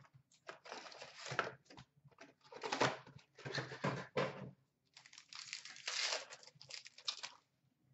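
Wrapped 2016-17 Upper Deck SP Authentic hockey card packs crinkling as they are pulled from their box and handled, in several irregular rustling bursts with short gaps, with tearing as a pack is opened.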